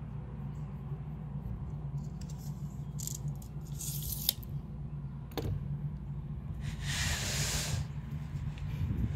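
Handling noises at a cutting setup over a steady low background hum: a tape measure blade retracting with a sharp click about four seconds in, then a second click, and near the end a DeWalt aluminium track-saw guide rail sliding across a sheet of plywood with a brief scraping hiss.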